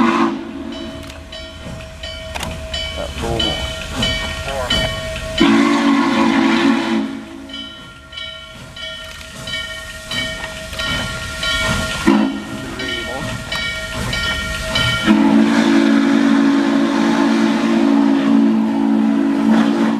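The steam whistle of Norfolk & Western Class J 611 sounding a low chord in three blasts: a short one, a brief toot, then a long blast held for about five seconds near the end, each with a rush of steam hiss. A bell rings steadily underneath throughout.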